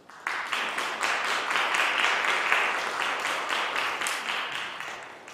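Audience applauding, starting suddenly just after the start and fading away toward the end.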